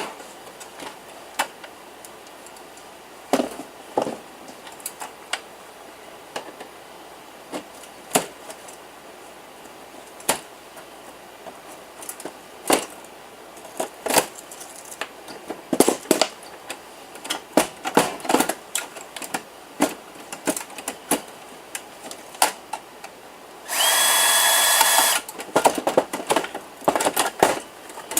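Scattered clicks and knocks of metal computer parts and screws being handled as a desktop PC tower is taken apart. Near the end a power drill runs once for about a second and a half.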